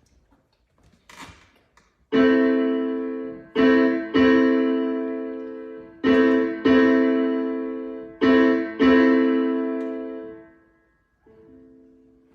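Piano chords struck and left to ring, each fading away. After about two seconds of near quiet come a long chord and then three pairs of a short chord followed by a longer held one, with softer, quieter notes near the end.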